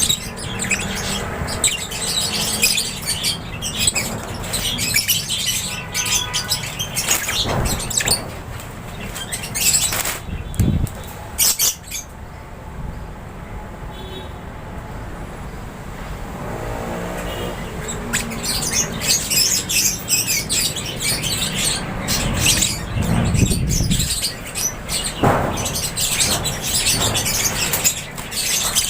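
A flock of lovebirds chirping in a dense, overlapping chatter, with short sharp sounds mixed in. The calling thins out for several seconds about midway, then picks up again.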